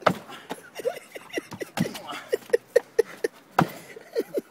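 Sharp thuds of a man kicking and punching a wall, the loudest right at the start, about two seconds in and near the end. A quick run of short vocal sounds, about four a second, comes in the middle.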